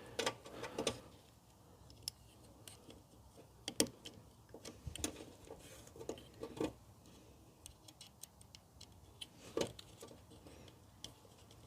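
Quiet, irregular small clicks and light taps of wiring handling as insulated spade connectors are pushed onto a car door speaker's terminals.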